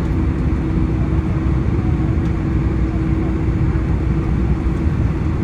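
Airliner cabin noise while taxiing: a steady low rumble from the jet engines at taxi power and the rolling wheels, with a constant hum over it.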